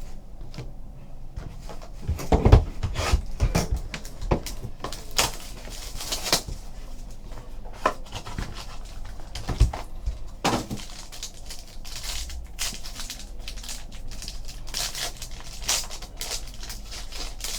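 Irregular rustling, crinkling and light clicks of trading cards and their packaging being handled and opened, with a couple of sharper knocks.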